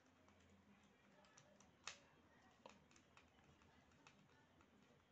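Near silence with faint scattered clicks and ticks from a screwdriver turning a small screw in an electric fly swatter's circuit board; one sharper click about two seconds in.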